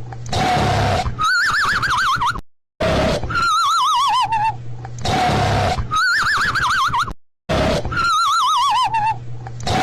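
Cartoon snoring sound effect on a loop. Each snore is a rasping, rumbling breath followed by a warbling whistle that wavers and falls in pitch. The cycle repeats about every five seconds with a brief silent gap.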